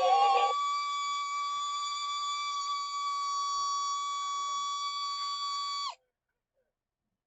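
Animated singing plush dog toy: the end of its synthetic song gives way to a single long, steady high-pitched tone that drops in pitch and cuts off suddenly about six seconds in.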